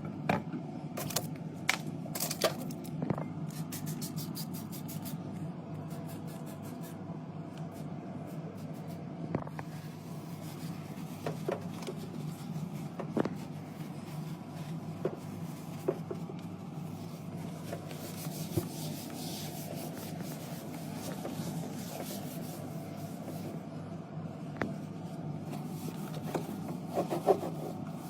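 Cleaning out and restocking a drinks fridge: rubbing and wiping, with scattered light clicks and knocks of cans, bottles and packets being handled, over a steady low hum.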